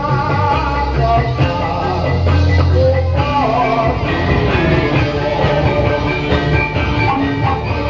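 Loud live accompaniment music for a topeng ireng dance, with a strong bass, drums and a melody line, and singing over it.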